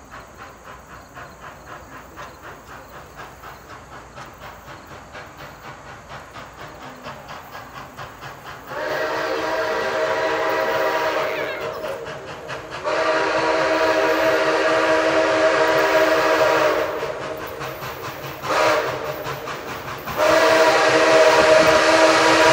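Approaching steam locomotive, its exhaust beating in an even rhythm of about three beats a second that slowly grows louder. Then its chime whistle sounds several notes at once in four blasts, long, long, short, long: the grade-crossing signal.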